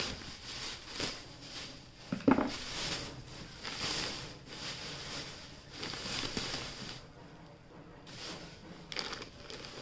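Thin plastic bags crinkling and rustling in irregular bursts as hands rummage through them in a cardboard box, with one louder burst about two seconds in.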